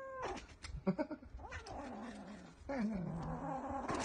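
Kitten yowling in drawn-out, wavering calls, with a few sharp clicks in the first second; the loudest call, near the end, slides down in pitch and then holds low.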